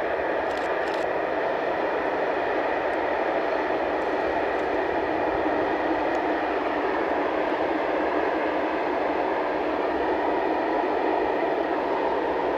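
Steady rolling noise of a long freight train's wagons running along the line, an even roar that holds throughout.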